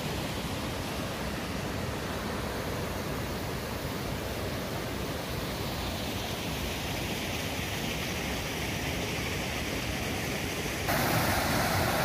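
Steady rushing of river water flowing over rocks. Near the end the sound abruptly gets louder and fuller.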